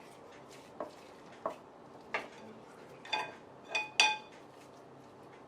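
Kitchen utensils clinking and knocking against dishes: about six separate strikes, the later ones ringing, the loudest about four seconds in.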